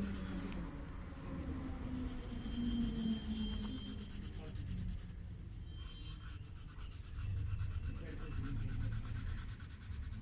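Crayon shading on paper: quick back-and-forth rubbing strokes, a continuous scratchy sound that swells and fades with the hand's movement.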